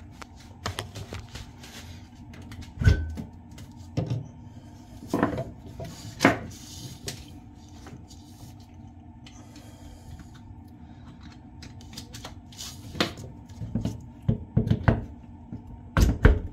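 Scattered knocks, clicks and rattles of hands working at the back of an RF generator, connecting a cable, with a faint steady hum underneath. The loudest knock comes about three seconds in, and a cluster of knocks comes near the end.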